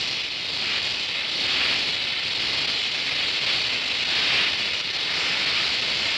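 Oxy-acetylene welding torch flame hissing steadily while a weld bead is run, swelling and easing slightly.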